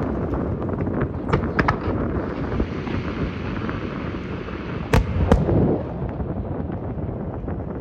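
Aerial fireworks bursting: a continuous crackle and rumble with several sharp bangs, the loudest a pair about five seconds in.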